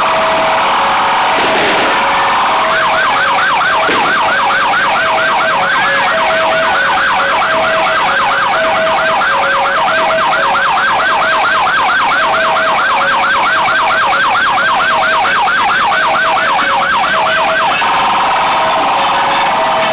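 SAMU ambulance siren running loud. It switches from a steady tone to a fast yelp of several rising sweeps a second about three seconds in, and back to the steady tone near the end. Under it a second siren alternates between two lower notes.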